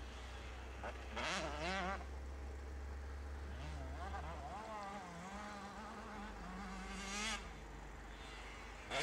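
Distant motocross motorcycles running around a dirt track, a thin engine buzz that rises and falls in pitch as the riders rev and shift, loudest about a second in and again near the end.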